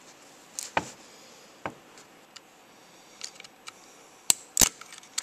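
Scattered light clicks and taps of hand work on the rocker arm shaft of a Suzuki G16 cylinder head as its O-ring is worked off, with the two sharpest clicks coming close together a little after four seconds in.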